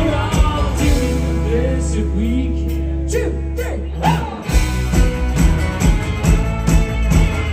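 Live rock band playing: about a second in the drums drop out, leaving a held low bass note and chord under a singing voice, and a little past halfway the drums and full band come back in on a steady beat.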